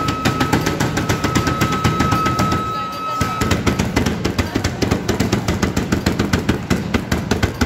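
Hands slapping a round drum-like pad rapidly, about five or six slaps a second, on a hands-on sound exhibit. A steady high tone sounds alongside and stops about three and a half seconds in.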